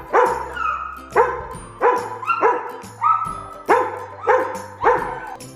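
A dog barking repeatedly in excitement, about nine sharp barks evenly spaced roughly two-thirds of a second apart.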